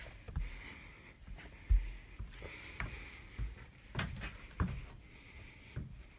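Irregular soft thumps, knocks and rustles of someone crawling over attic joists and insulation, handling a phone and light. There is a heavy thump about two seconds in and a pair of sharper knocks around four seconds in.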